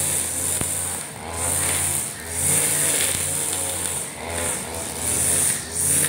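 Husqvarna 542RBS backpack brush cutter's two-stroke engine running under load, its revs and level rising and falling every second or two as the round nylon trimmer line sweeps through short grass, with a high hiss from the spinning line.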